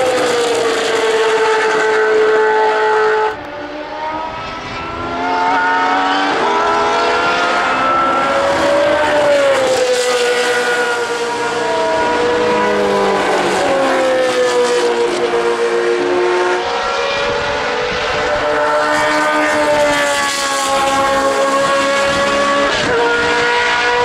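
Ford Cosworth DFV V8 of a 1979 Ligier JS11 Formula One car at racing speed, its engine note climbing and falling again and again through gear changes and lifts. It goes briefly quieter about three seconds in, then comes back up.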